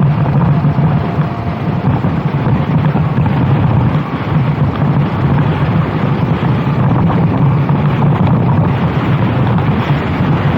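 Racing kart engine running hard under load, a steady loud drone, with wind buffeting the onboard microphone.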